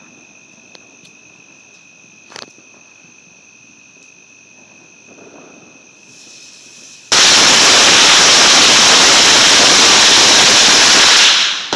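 A long strand of firecrackers going off in one dense, rapid, very loud crackle for about four seconds, starting suddenly about seven seconds in and tailing off near the end. Before it, only a steady high insect trill.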